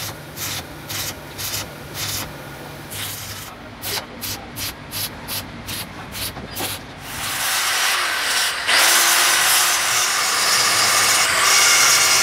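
Stick welding on a cast-iron gear tooth, the arc crackling in short bursts about two a second, coming faster after a few seconds, over a low welder hum. About seven seconds in, an angle grinder starts grinding the welded tooth down, loud and steady, louder still after about nine seconds.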